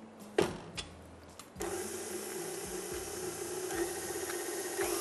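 A sharp clack about half a second in as the tilt-head of a KitchenAid stand mixer is lowered and locked. About a second and a half in, its motor starts and runs steadily, beating egg yolks with caster sugar.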